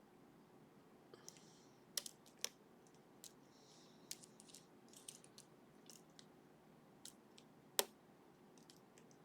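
Irregular small sharp clicks of a hook pick lifting the barrel drivers and pins in a sleeved Ruko lock under tension, with faint scraping of the pick in the keyway; the loudest clicks come about two seconds in and near the end. Lots of clicks are typical when picking barrel drivers.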